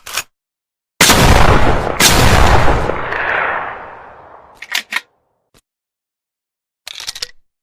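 TOZ over-and-under shotgun fired twice, about a second apart, each shot a sudden loud blast with a long echoing tail that dies away over a couple of seconds. A few short clicks follow later.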